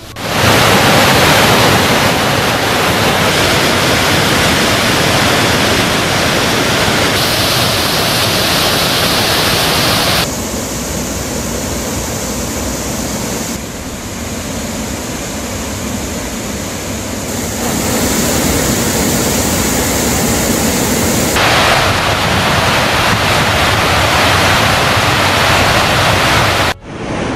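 Waterfall on the Cauvery River in flood: a loud, steady rush of water. Its level and tone change abruptly several times as the footage cuts between views.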